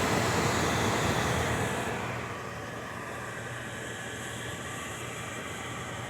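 GE over-the-range microwave oven running: a steady whir of its fan over a low hum, dropping to a quieter level about two seconds in.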